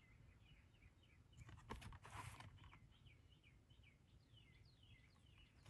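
Near silence, with a bird chirping faintly in short high notes, a few a second. A brief faint rustle comes about one and a half seconds in, and another about two seconds in, as the plastic Blu-ray case is turned over.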